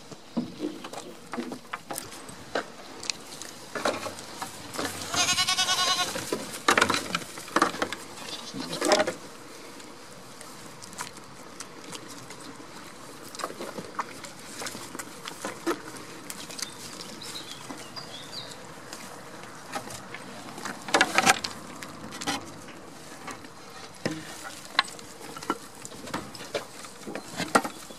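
Goat bleating: one wavering call of about a second a few seconds in, with a second, shorter call about twenty seconds in, over scattered clicks and rustles.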